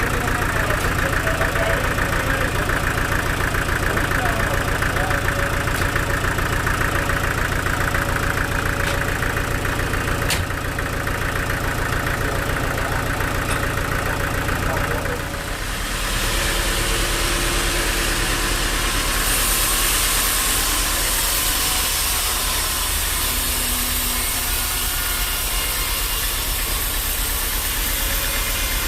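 Bandsaw sawmill machinery running steadily with an engine-like hum. About halfway through, the sound changes to an even, hissing noise.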